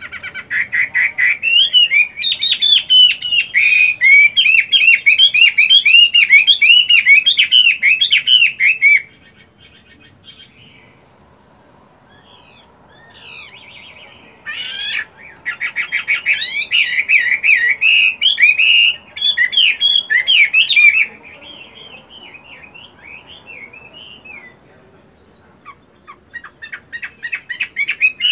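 Chinese hwamei (melodious laughing thrush) singing loud, rapid runs of varied, sliding whistled phrases. The song breaks off about nine seconds in, starts again near fifteen seconds, stops again near twenty-one seconds, and resumes near the end.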